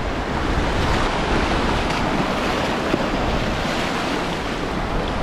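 Ocean waves breaking and washing over the shallows in a steady rush of surf, with wind buffeting the microphone as a low rumble.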